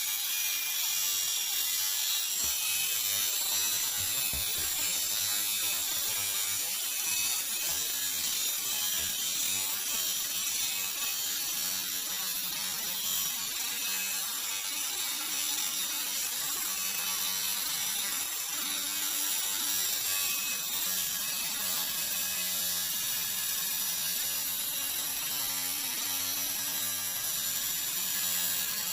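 Angle grinder cutting into an old metal brake rotor, a steady grinding of the disc against the metal that holds level throughout.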